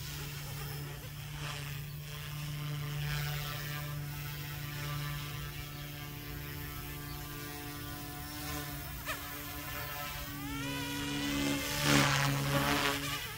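Goosky S2 RC helicopter with resin 3D-printed main blades flying: a steady motor and rotor whine in a hover, which rises in pitch about ten seconds in and is loudest near the end as the helicopter climbs.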